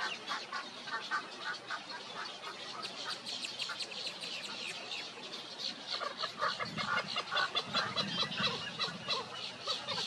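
Great egret nestlings calling at the nest: a steady run of rapid, short clucking calls, several a second. About two-thirds of the way through, deeper, heavier calls join in and the sound grows louder.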